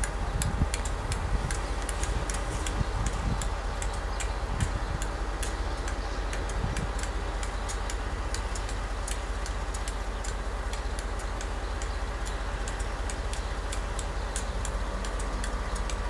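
KiwiRail DC-class diesel-electric locomotive running with a steady low rumble and a few held tones, under sharp irregular ticks several times a second.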